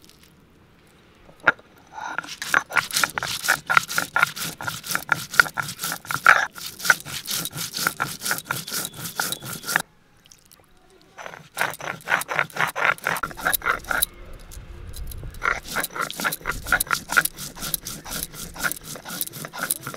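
Stone roller scraping back and forth on a flat grinding stone, crushing wet coriander seeds into paste: quick rhythmic grinding strokes, about four a second, broken by a pause of about a second near the middle.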